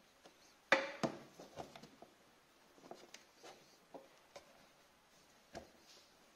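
Plastic clicks and light knocks of a Yamaha Mio Soul i 125 scooter's stock ignition coil and its wiring being handled and unplugged by hand. A sharp click about three-quarters of a second in is the loudest, with another just after it, then scattered smaller clicks and rustles.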